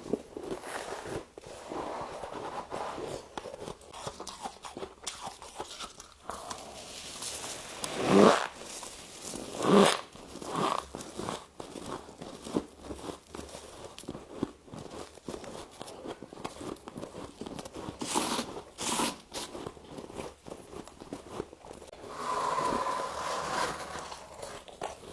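Bites and chewing of deep-freezer frost: packed frost crunching and squeaking between the teeth, with two louder bites about eight and ten seconds in.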